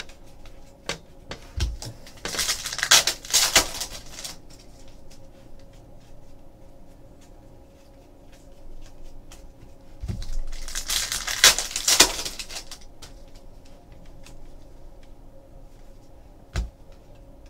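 Trading cards and a foil pack wrapper being handled: two rustling bursts, about two seconds in and again about ten seconds in, each lasting about two seconds, with soft clicks of cards sliding against each other between.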